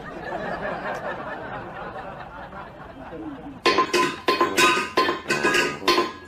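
A steady rushing noise for the first few seconds. Then a stainless steel pet bowl clangs repeatedly on a tiled floor as a cat knocks it about: rapid sharp, ringing clinks, about four a second.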